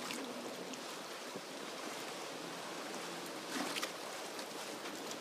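Steady wash of harbour water and wind around a ferry as it eases up against a wharf pontoon, with a brief louder swish about three and a half seconds in.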